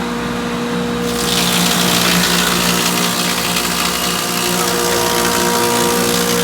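1920s planer with a straight-knife cutterhead running with a steady hum. About a second in, the knives start cutting, taking a quarter-inch-deep pass in ash hardwood, and a loud cutting hiss sets in over the hum and continues.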